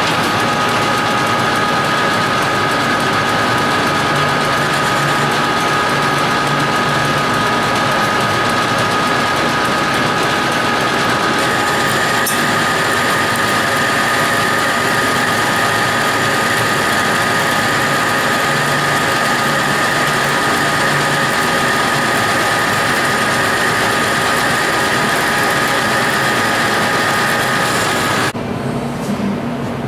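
Metal lathe running and turning down an aluminum bar, a steady mechanical whine with noise, shifting slightly in pitch about a third of the way in. The sound cuts off sharply near the end.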